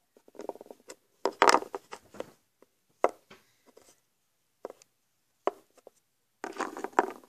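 Handling noise from small plastic toy figures being picked up and moved, with the camera being moved as well. It comes as scattered clicks and knocks, with a louder rustling scrape about a second in and another rustle near the end.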